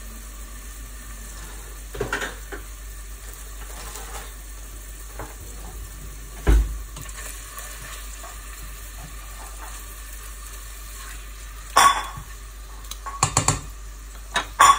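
Peeled prawns (langostinos) frying in olive oil and garlic in a saucepan, with a steady sizzle. A few sharp knocks and clatters of a spatula and pot cut through it: one about two seconds in, a heavier thump in the middle, and a cluster near the end.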